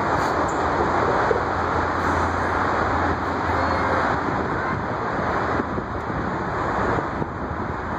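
Steady street noise: a continuous rumble of city traffic.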